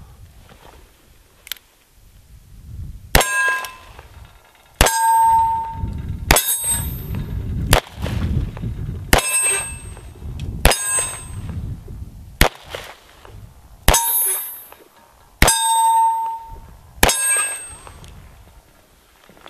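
A single-action .45 Colt revolver fires black-powder rounds, about ten shots roughly a second and a half apart. Most shots are followed by the clang and ring of a struck steel target.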